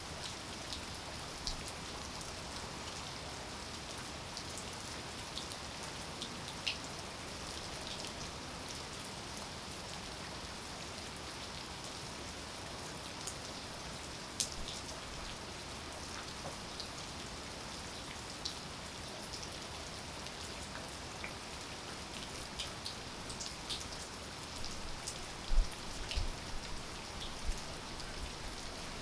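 Steady rain falling, with many individual drops ticking sharply on nearby surfaces. A few low thumps come near the end.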